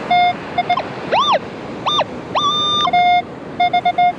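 Minelab metal detector sounding target tones: a run of short mid-pitched beeps, then tones that rise and fall in pitch and one held higher tone, then more short beeps. Steady surf hiss underneath.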